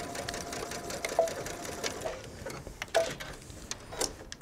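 Brother electric sewing machine stitching steadily through two layers of cotton fabric, the needle running with a rapid, even ticking and a faint motor hum, with a few slightly louder clicks along the way.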